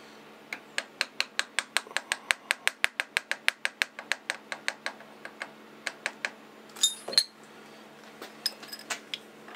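Brass hammer tapping steel clamp blanks down in a milling vise, seating them on the parallels: a quick, even run of light metallic taps, about eight a second, then slower, scattered taps. There is a brighter metallic clink about seven seconds in.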